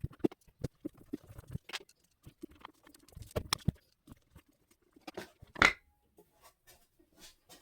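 Irregular light clicks and taps of parts being handled, with one sharper click about five and a half seconds in.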